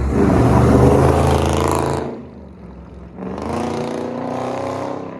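Two performance cars accelerating past, one after the other. The first engine is loud, with a deep rumble, and fades about two seconds in. The second comes in about a second later with its pitch rising as it revs up.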